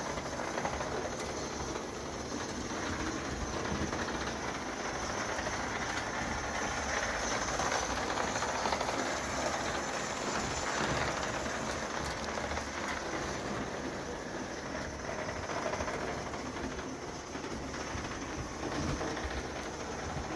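1915 Bing S 2/6 gauge 1 live-steam model locomotive running on metal track: a steady hiss of steam with the clatter of its wheels on the rails, a little louder about halfway through as it passes close. The steam hissing out at the front is a leak.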